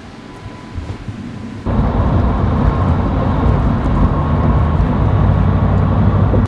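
Loud, low, irregular rumbling noise that starts suddenly a little under two seconds in and cuts off abruptly at the end, after a fainter steady noise.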